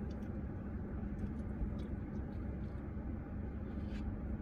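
Steady low rumble of a car's running engine heard inside the cabin, with a faint constant hum.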